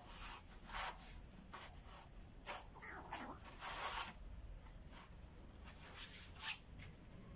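Kittens scuffling as they wrestle and pounce, making short, irregular scrapes and rustles of paws and bodies on brick paving.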